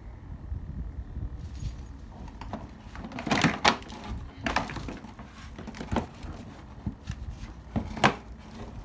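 Hard plastic knocking and cracking as the cut-out original grille section of a Proton Iriz front bumper cover is worked loose and pulled free by hand: a string of sharp knocks, loudest about three and a half seconds in and again near the end.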